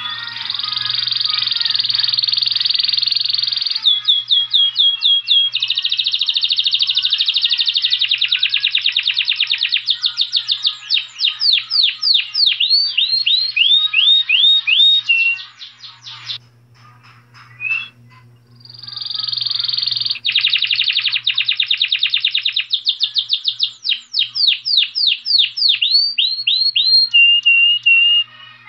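Saffron finch singing: long, rapid, buzzy trills that break into series of quick sweeping notes, in two song bouts separated by a pause of about three seconds near the middle.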